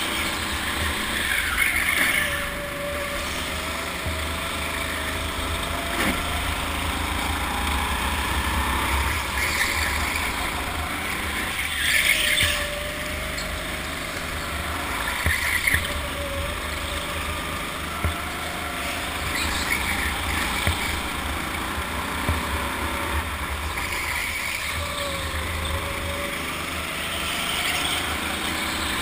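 Go-kart being driven hard around a track: a steady motor drone whose pitch rises and falls with speed, and short tyre squeals in the corners every few seconds.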